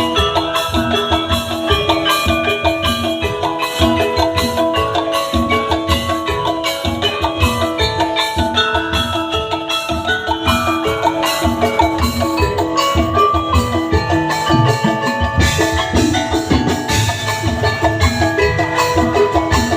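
Tongklek music: an ensemble of bamboo and wooden percussion playing a fast, even rhythm. A melody of struck, xylophone-like notes runs over a steady low beat.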